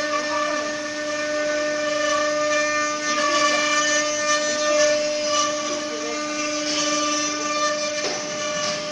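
Spindle of a multi-head 4-axis CNC wood router running at speed while carving a wooden workpiece: a steady high whine over an even hiss of cutting.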